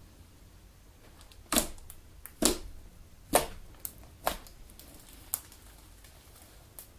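Elmer's galaxy slime being squeezed and kneaded by hand, making a series of sharp pops and clicks: four strong ones about a second apart, then a few fainter ones.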